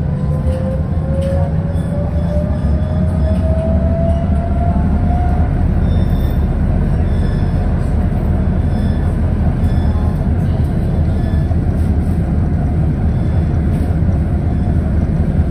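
Interior of a ČKD KT8D5R.N2P articulated tram running along its rails: a steady low rolling rumble, with the electric traction drive's whine rising in pitch over the first five seconds as the tram accelerates, then fading into the rumble.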